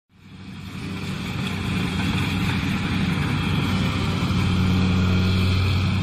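Kubota DC-70 rice combine harvester running while it cuts the crop: a steady low diesel engine hum with the noise of its cutting and threshing machinery. The sound fades in over the first second or so, then holds steady.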